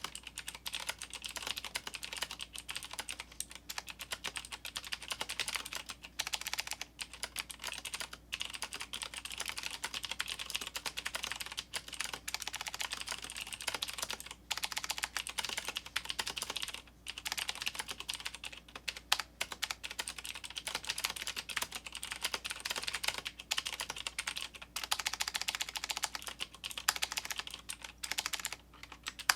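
Fast typing on a 1stPlayer Steampunk mechanical keyboard with clicky Cherry MX Blue clone switches. A dense run of keystroke clicks is broken by a few short pauses.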